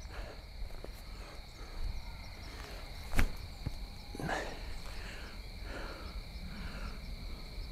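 Crickets trilling steadily in two high tones. About three seconds in, one sharp snap as a disc golf disc is thrown for an upshot, followed by a few soft rustles in dry leaves.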